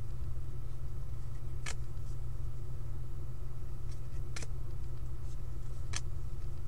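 Steady low hum with three faint, short clicks of trading cards being slid and flicked through by hand.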